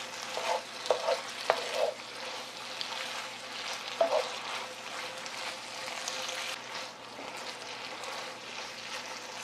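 Gochujang-coated dried squid strips sizzling in a frying pan while a wooden spatula stirs and scrapes through them, as the sauce cooks down. There are a few short scrapes and taps of the spatula on the pan in the first two seconds and again about four seconds in.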